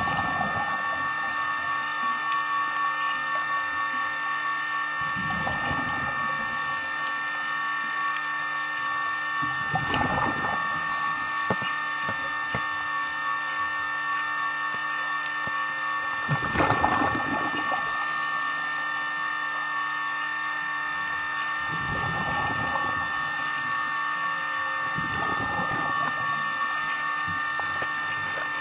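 Scuba regulator exhaust bubbles rushing out in surges about a second long, every few seconds with each exhaled breath. Under them runs a steady whine of the camcorder's mechanism inside its underwater housing.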